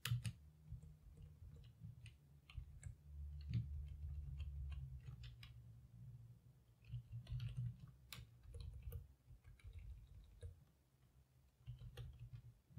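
Faint computer keyboard keystrokes, scattered irregular clicks, over a low hum.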